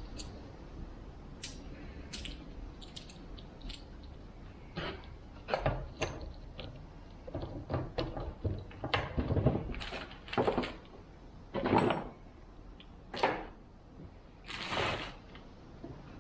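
Irregular clinks, knocks and short scrapes of a chainsaw bar and chain being handled and fitted back onto the saw's powerhead, busiest in the second half.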